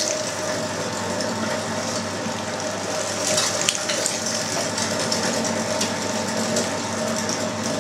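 Electric meat grinder running steadily under load as fatty pork is pushed through its coarse 7 mm plate, a motor hum with steady tones, and a few light clicks about three and a half seconds in.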